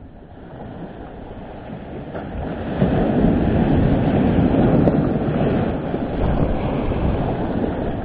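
Storm waves breaking against a stone sea wall and rushing up the shore, a steady surf roar that builds up and grows loud about three seconds in.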